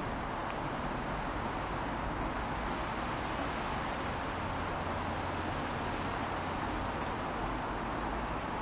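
Steady outdoor background noise, an even hiss with a faint low hum, unchanging in level.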